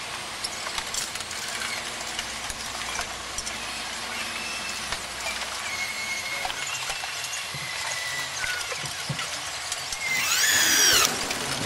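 Hiss of a hand-held pneumatic drill working through a drilling template on an aircraft wing panel, with faint high whines and clicks. About ten seconds in comes a short, louder squealing whine that falls and rises in pitch.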